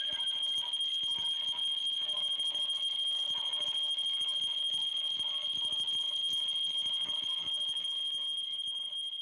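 Experimental electronic drone: a steady high-pitched tone over a faint crackling hiss, easing off slightly near the end.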